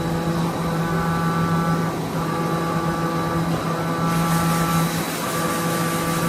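Gantry robot and mill-turn machine running: a steady motor hum with whining servo tones that start and stop every second or two, and a rush of hiss about four seconds in.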